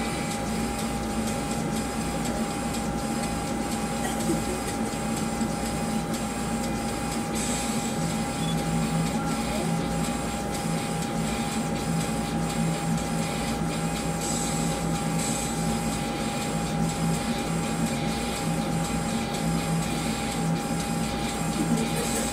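A steady mechanical hum with a constant whine, the low part of the hum pulsing on and off, like a small machine running.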